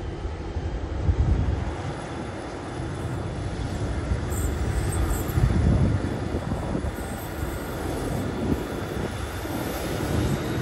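Several diesel locomotives, led by 81 class 8125, hauling a freight train toward the listener: a low engine rumble that slowly grows louder as the train nears.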